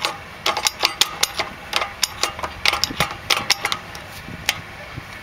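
Star-wheel adjuster of a rear drum brake being turned with a flat-bladed tool, giving sharp metal clicks as the blade catches its teeth. The clicks come irregularly, about three or four a second, and thin out near the end.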